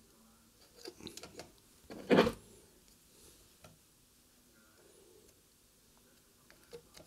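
Metal control knobs being handled and pushed onto the potentiometer shafts of a Grundig Satellit 6001 radio: a cluster of small clicks, one louder knock about two seconds in, and a few faint ticks near the end.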